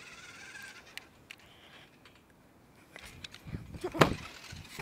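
Low thuds and one sharp, loud thump about four seconds in from a toy RC truck bouncing on a trampoline mat.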